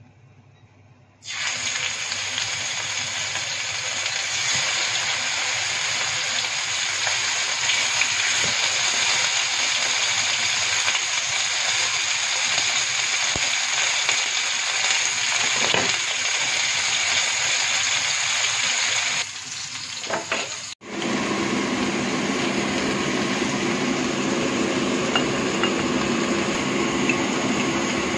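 Sirloin steaks sizzling loudly in hot olive oil in a frying pan, the sizzle starting abruptly about a second in as the meat goes into the oil. After a break about two-thirds of the way through, a different steady noise with a low hum takes over.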